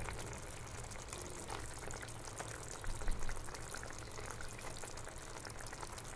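Spicy fish gravy bubbling and sizzling in a nonstick frying pan, with a constant light crackle. A couple of soft knocks about three seconds in as the slotted spatula moves the fish in the pan.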